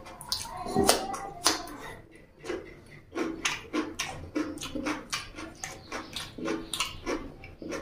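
Close-miked chewing of a mouthful of raw cucumber: crisp crunches and wet mouth clicks, settling into a steady chewing rhythm of about two to three chews a second.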